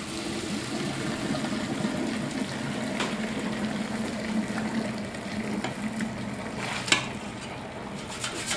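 Hot pasta water pouring from a pot into a stainless-steel colander in a sink: a steady splashing rush. There is a sharp knock near the end.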